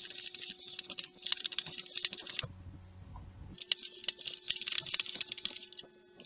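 A carrot being twisted through a handheld spiral vegetable slicer, the blade cutting it with rapid clicking and scraping. It comes in two stretches, stopping about two and a half seconds in and starting again about a second later.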